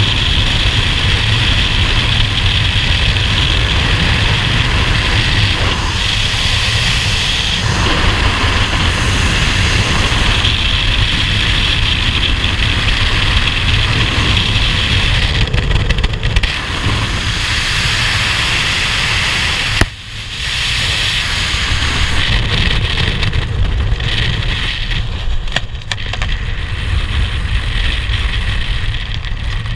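Freefall wind rushing over a helmet-mounted camera's microphone during a skydive. About two-thirds of the way through, a sharp snap briefly drops the noise as the parachute deploys. The wind continues, thinner near the end under the open canopy.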